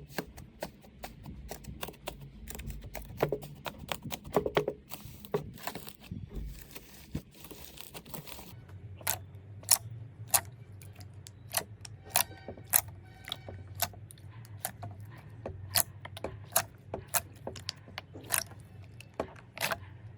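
Slime being squeezed and poked by hand, making a run of sharp clicking and crackling pops. Partway through the background changes from a faint hiss to a low steady hum under the pops.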